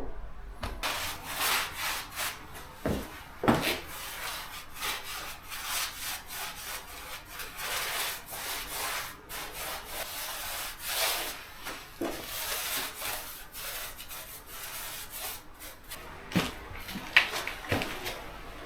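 A brush scrubbing in repeated rough strokes over the floor surface, with a few short knocks about three seconds in and again near the end.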